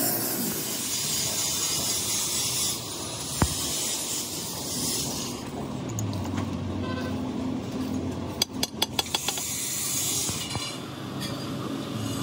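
Metal-on-metal clinks of a tractor engine's crankshaft main bearing caps and hand tools being handled on the engine block: one sharp clink a few seconds in and a quick run of about six clinks past the middle, over a steady low background hum.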